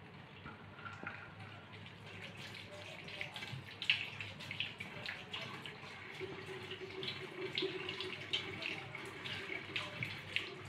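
Kitchen tap running into a sink while a tawa (flat iron griddle) is rinsed and scrubbed under it, with scattered knocks and clinks of the pan against the sink.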